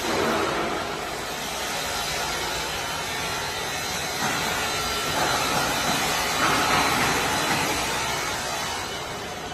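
Steady hiss of factory background noise, without any distinct machine rhythm or impacts.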